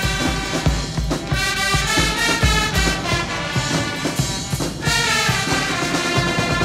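Marching brass band playing: trumpets and other brass carry the tune over regular bass drum beats, with a short break near the end before the next phrase begins.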